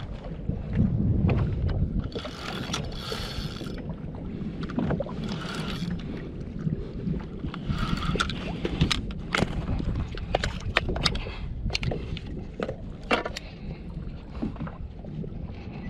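Water sloshing and splashing against a plastic fishing kayak's hull, with a steady low rush of wind on the microphone. Scattered sharp clicks and knocks come mostly in the second half.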